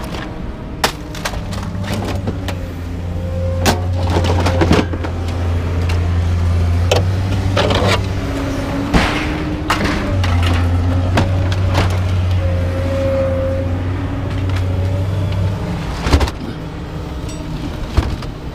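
Scrap-yard excavator with a lifting magnet running close by: its engine and hydraulics rise into a low drone twice, each time for several seconds, with a faint whine on top. Scattered clanks and knocks of scrap metal are heard throughout.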